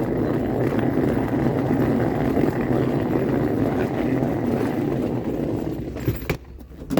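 Vehicle driving: steady engine and road noise, which falls away sharply about six seconds in.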